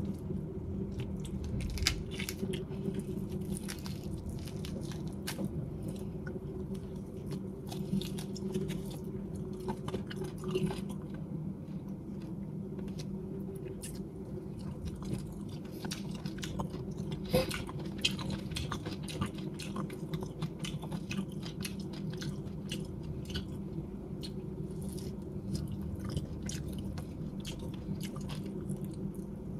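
A person biting and chewing salt-baked chicken skin and meat: irregular small clicks and smacks of the mouth.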